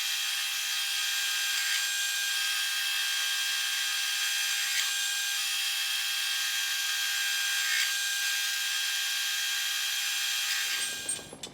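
Metal lathe taking a light cut on a 4140 steel shaft: a steady high whine with a hiss of cutting, which stops suddenly near the end.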